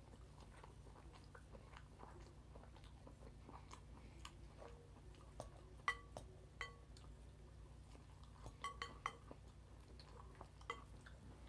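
Quiet chewing of a mouthful of leafy salad, with a fork clinking against a glass bowl: a few sharp, ringing clinks, the loudest about six seconds in and a quick cluster around nine seconds.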